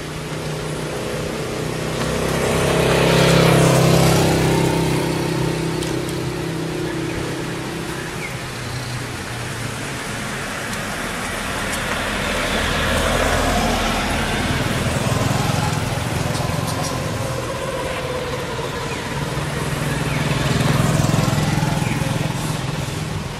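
Motor vehicles passing three times, each engine swelling and fading, over a steady hiss of light rain.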